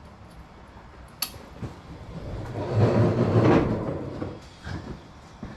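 Engine parts being handled during a rebuild: a sharp click, then about two seconds of sliding, scraping noise, then a couple of light knocks.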